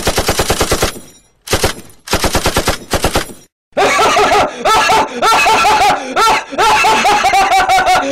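Machine-gun fire sound effect: two short bursts of rapid shots, then from about four seconds in a longer, denser run of rapid fire with a repeating pitched chirp over it.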